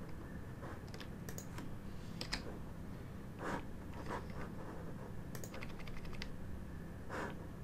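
Scattered computer keyboard key presses, about ten separate clicks at an irregular pace, over a low steady hum.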